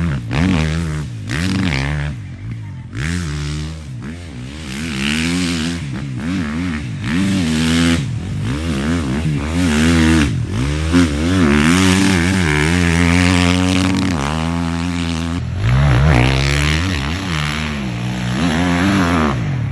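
Dirt bike engine revving hard and dropping off again and again as the rider powers through corners on loose dirt, its pitch rising and falling every second or two. The sound changes abruptly near the end, where another take of the bike begins.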